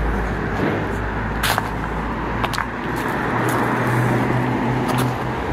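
Road traffic: a motor vehicle's engine running as a steady low hum and rumble, with a few sharp clicks.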